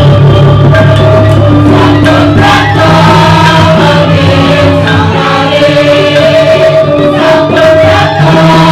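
A Balinese tembang (sung verse) performed by a singer over a microphone, with gamelan accompaniment: long held sung notes over a steady low tone, with occasional struck accents.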